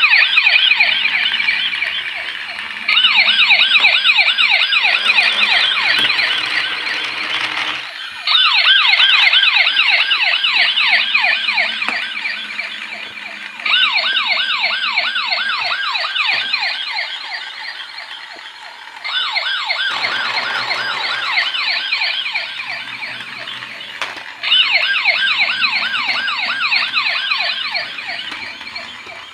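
Battery-powered toy police car's electronic siren: a fast warbling wail. It restarts louder about every five and a half seconds and fades away between restarts.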